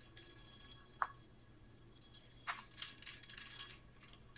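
Faint, sparse clicks and ticks: a sharp click about a second in, another about two and a half seconds in, then a run of small ticks. It is an anime sound effect of the eerie sound that the characters liken to a chain turning or something being wound.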